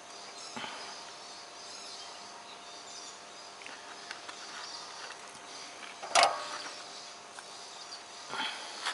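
Small hand tools handled on a workbench: a sharp clack about six seconds in and a softer knock near the end, over a faint steady hiss.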